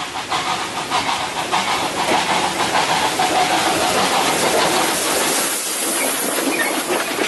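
Train running past: a steady rushing hiss with a rapid rhythmic clatter of wheels over the rails, easing off after about five seconds.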